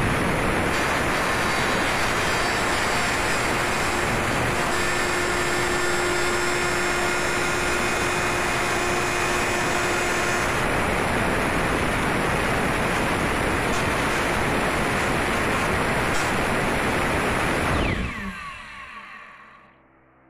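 Electric router running at full speed, its spinning bit cutting a round hole in an aluminium panel: a loud, steady machining noise. Near the end the motor winds down with a falling pitch.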